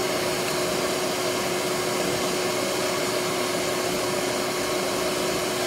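Canister vacuum cleaner running steadily, a constant rushing noise with a steady hum.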